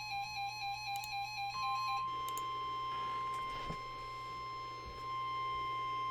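Weather radio alarm tones. A pulsing, warbling alert beeps about two and a half times a second and stops about two seconds in. It overlaps with and gives way to the steady high tone of the NOAA Weather Radio warning alarm, which signals that a warning message is about to be read.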